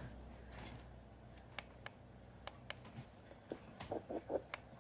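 Handheld fetal doppler just switched on, its speaker giving a faint low hum that dies away about three seconds in, with scattered light clicks.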